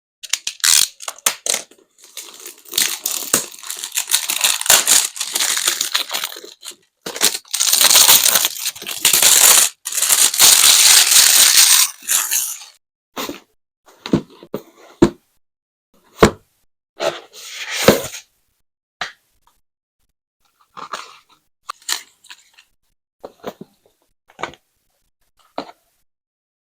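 Packaging of a wireless charger being opened by hand: plastic wrap and packaging tearing and crinkling for the first dozen seconds, then scattered clicks and taps as the pieces are taken out and set down.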